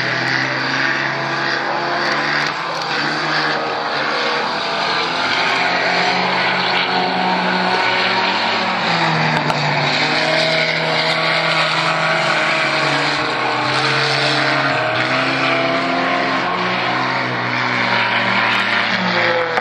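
Dirt-track stock car's engine running hard around the oval, its note rising and falling as it speeds down the straights and eases off through the turns.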